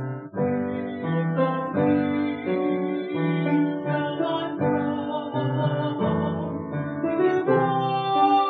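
Instrumental keyboard music: sustained chords and melody notes that change about every half second.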